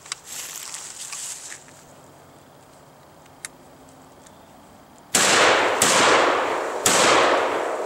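12-gauge shotgun fire: a loud blast about five seconds in, then two more sharp reports within the next two seconds, each trailing off in a long echo.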